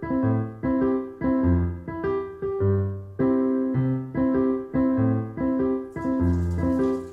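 Background piano music, notes struck about twice a second. About six seconds in, the hiss of running tap water joins under the music.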